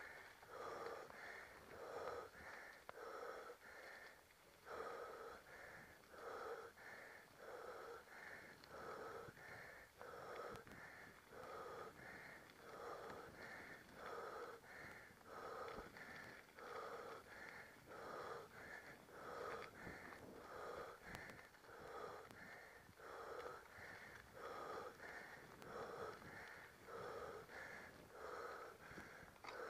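A mountain biker's hard, rhythmic panting close to the microphone, a breath a little more than once a second, from the effort of climbing a steep dirt ramp.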